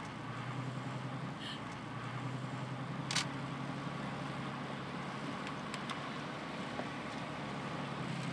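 Car engine running steadily at low speed with road noise, a low even hum; a single sharp click about three seconds in.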